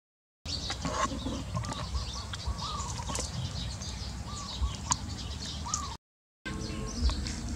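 Outdoor yard ambience with short chirping bird calls and light rustling. The sound drops out completely twice for about half a second, once at the start and once about six seconds in.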